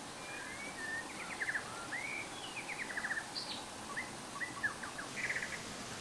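Songbirds chirping, with short rising whistles and quick trills, over a steady hiss of running stream water.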